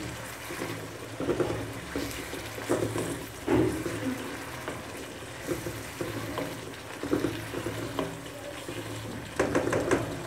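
A slotted plastic spatula stirring and mashing a simmering onion-tomato masala in a non-stick pan, in irregular strokes about once a second, with soft sizzling between them. The tomatoes have cooked soft.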